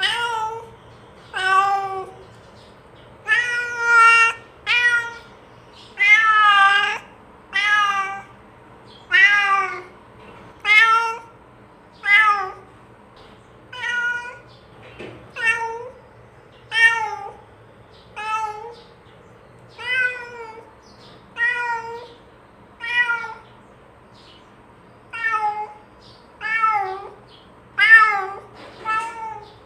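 A domestic cat meowing over and over, about one meow every second and a half, calling to another cat.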